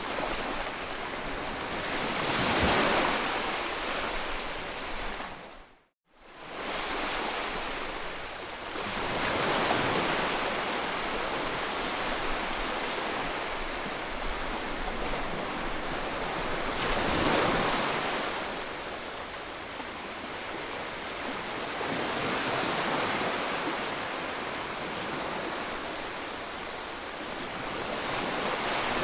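Sea waves breaking and washing on the shore, the surf swelling and falling back every several seconds. The sound drops out briefly to near silence about six seconds in, then returns.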